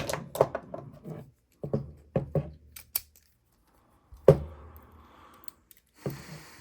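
Small metal padlocks and lock-picking tools being handled: a run of light clicks and knocks over the first three seconds, a heavier knock a little past four seconds, then faint rustling. The electric pick gun is not running.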